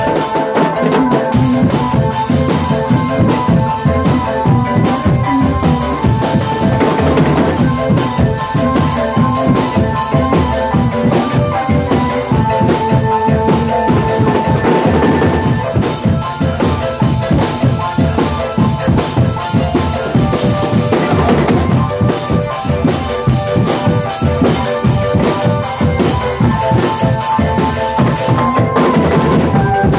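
Drum band playing: bass drums, snare and tenor drums beat a steady rhythm under a keyboard melody played through horn speakers. Cymbals crash about every seven seconds.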